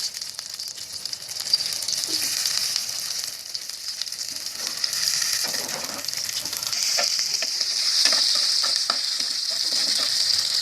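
Chana daal and meat tikkis frying in hot oil: a steady sizzle with small spattering pops, growing a little louder in the second half.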